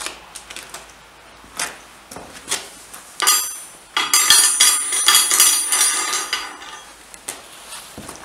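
Small drilled square steel blocks dropped by hand onto a steel plate: a few separate knocks, then from about three seconds in a dense clatter of metal clinks with a bright ringing, dying away after about six and a half seconds.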